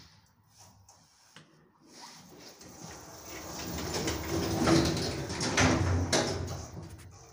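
Automatic sliding doors of a ShLZ EcoMaks elevator car closing: a sliding sound that builds over a few seconds, with a couple of knocks as the panels come together.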